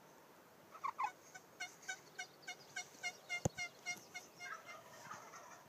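Wild turkey calling: a run of about ten evenly spaced notes, roughly three a second, with a single sharp click about halfway through.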